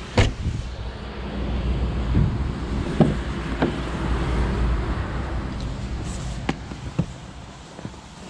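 Car body hardware being worked: a sharp thump as the Jaguar XF's trunk lid is shut, then a few lighter clicks and knocks from a rear door latch and handle, over a steady rumble of wind on the microphone.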